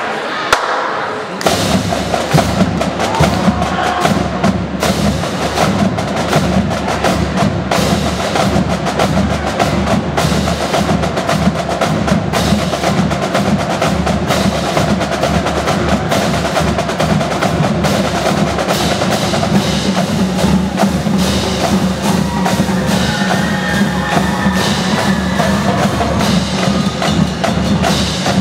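High school marching drumline playing a fast percussion piece of dense, crisp snare-type strokes over pitched bass drums. The bass drums come in about a second and a half in.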